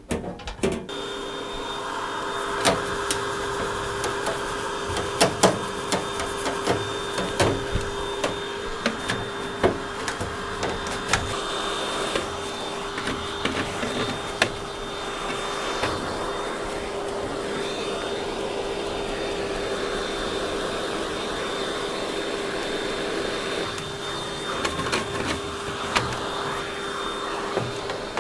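A vacuum cleaner runs steadily, cleaning lint out of a tumble dryer's door and drum. It starts about a second in, and its nozzle knocks and clatters now and then against the dryer.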